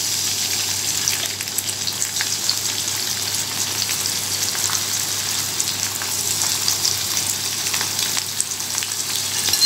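Shrimp shallow-frying in hot oil in a non-stick frying pan: a steady sizzle with many small pops and crackles.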